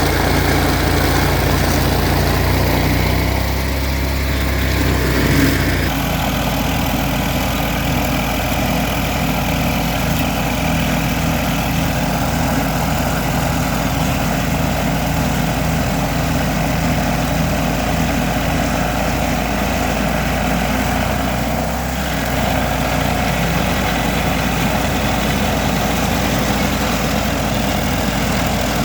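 Vermeer SC382 stump grinder's 37 hp engine running steadily, with a low pulsing throb. The tone shifts about six seconds in.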